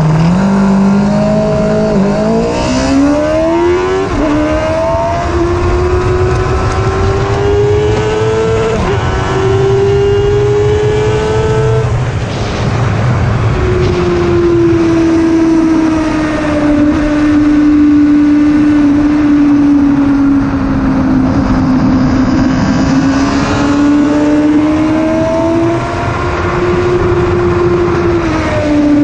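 A 1000cc superbike's engine at high revs, heard from on board at track speed. It pulls hard through quick upshifts in the first few seconds, then holds high rpm, easing down and climbing again through the lap with a sudden drop near the end. Wind rushes over the camera throughout.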